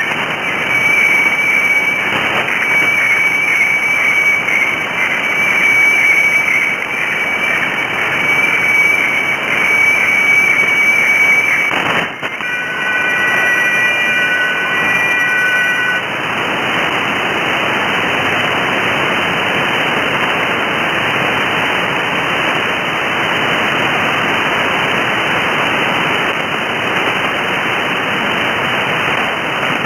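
Shortwave radiofax signal from Bangkok meteorological station HSW64 on 7395 kHz, heard through a receiver as a steady high tone over hiss. About 12 seconds in it changes to a cluster of several steady tones for about four seconds, the fax stop signal, then cuts off, leaving only static.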